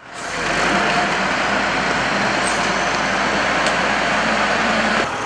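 Steady vehicle engine noise, fading in at the start and cutting off abruptly about five seconds in.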